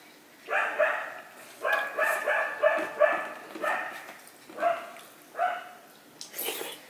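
Dog barking repeatedly: a run of short, fairly high-pitched barks, about one or two a second.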